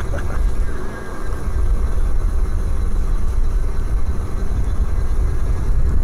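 Steady low wind rumble buffeting the microphone of a moving e-bike.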